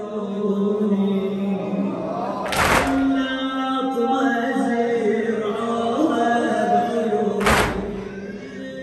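A male reciter chanting a slow Shia latmiyya lament, with a crowd of mourners striking their chests in unison twice, about five seconds apart.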